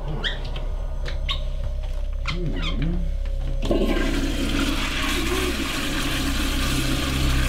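A restroom toilet flushes: a sudden rush of water starts about halfway through and keeps going. Before it come a few light clicks and squeaks.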